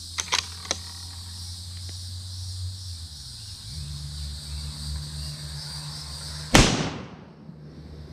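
A single rifle shot from a scoped Mossberg Patriot bolt-action rifle firing a full metal jacket round, about six and a half seconds in, with a short echoing tail. A few light clicks of the rifle being handled near the start, over a steady chorus of insects.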